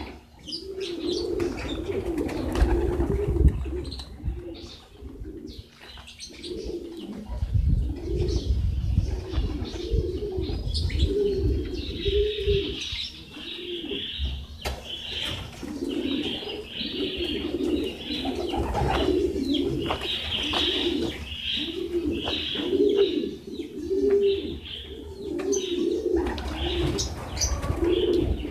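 Domestic pigeons cooing over and over, a steady run of low, throaty arching coos, with higher chirping joining from about twelve seconds in.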